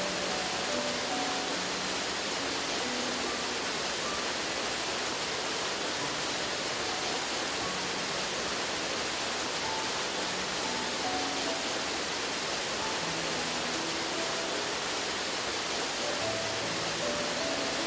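Steady rushing roar of a tall waterfall, about 90 metres high, with faint soft music of short scattered notes underneath.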